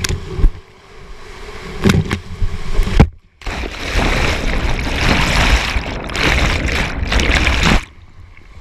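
Whitewater rushing and splashing over a kayak and onto the camera in a rapid, with a few sharp knocks of water hitting the microphone. The sound cuts out briefly about three seconds in and then comes back loud. Near the end it turns suddenly quieter and muffled as the camera is engulfed in foam.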